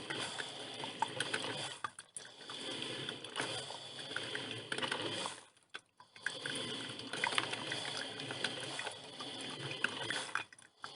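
Filter coffee machine brewing: a steady hiss of gurgling and sputtering with small pops as hot water is pushed up to the filter, dropping away briefly about two seconds in, around the middle and near the end.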